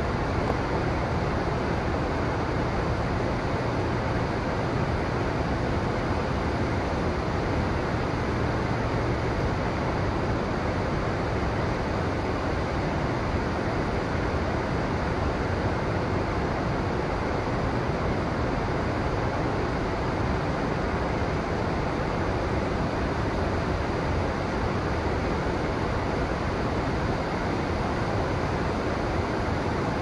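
Steady rushing of a river's flowing water, an even, unbroken noise.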